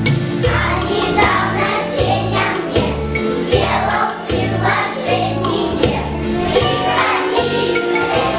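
Singing, perhaps by several voices together, over a backing track with a steady drum beat and bass.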